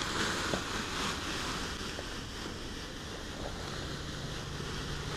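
Perlite pouring from a bag into a plastic tub of coconut coir: a steady rushing hiss of light granules.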